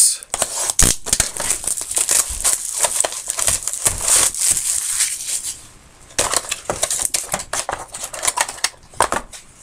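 Plastic and foil wrapping of a trading card box being torn open and crinkled: a dense crackle that pauses briefly about six seconds in, then resumes.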